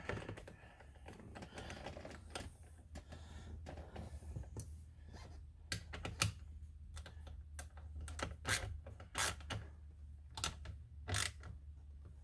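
Irregular sharp clicks and light clatter of small hand tools and parts being handled, sparse at first and coming thick and fast over the second half.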